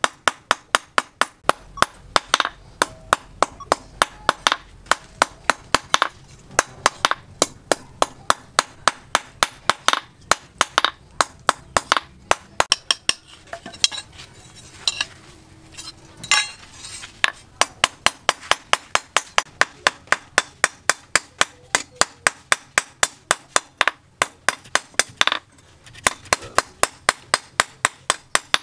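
Hand hammer striking red-hot steel on a small steel post anvil, forging a prong of a multi-hook fishing tool. The blows come fast and even, about four a second, each with a metallic ring. They thin out for a few seconds about halfway through and stop briefly near the end.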